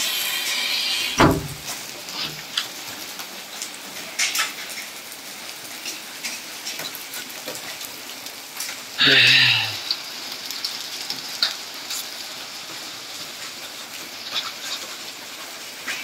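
Steady rain falling, with many scattered sharp taps of drops hitting things. Two brief louder noises stand out, about a second in and again around nine seconds.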